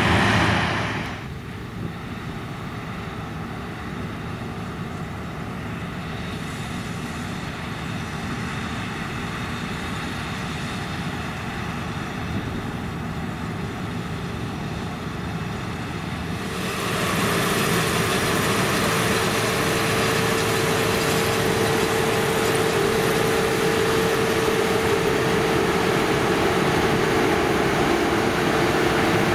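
CLAAS Lexion combine harvester running under load while picking up and threshing grass swaths, a steady engine and threshing-machinery drone. It drops in level about a second in and grows louder again after about 17 seconds, when a steady humming tone joins it.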